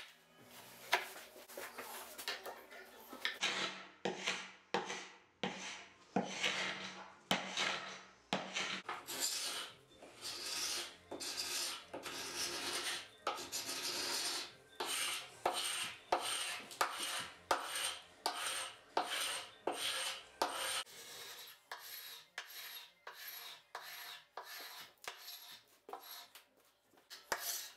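Carbide scraper rasping over a wood veneer dresser top in short repeated strokes, roughly one and a half a second, scraping off old paint and varnish down to the wood.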